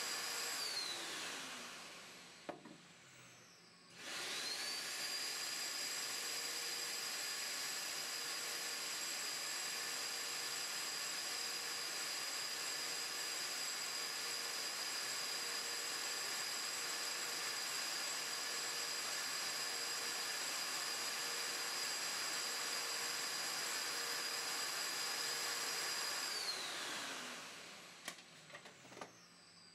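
Wet/dry shop vacuum that draws through the robot arm's suction hose. Its motor winds down with a falling whine at the start, starts again about four seconds in with a rising whine, and runs steadily before winding down again near the end, with a few small clicks as it stops.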